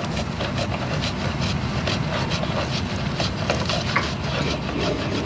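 Irregular small metallic clicks and taps of a hand tool working at an air-conditioner condenser's service valve to pull out its valve core, over a steady low hum.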